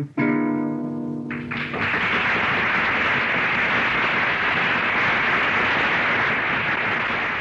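A final chord on an acoustic guitar rings out, and about a second and a half in a live audience breaks into steady applause.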